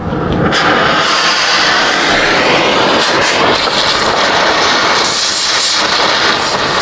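Oxy-fuel cutting torch hissing steadily as its cutting jet burns away a rusted, tack-welded nut on the exhaust flange, throwing sparks and slag. The hiss comes on sharply at the start and holds without a break.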